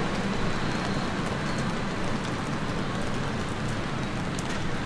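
Steady rain falling, a dense hiss with the small ticks of individual drops landing close to the microphone.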